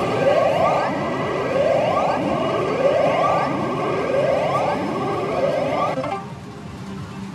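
Electronic sound effect from a pachinko machine: a siren-like rising sweep repeated about once a second, six times, stopping near the end.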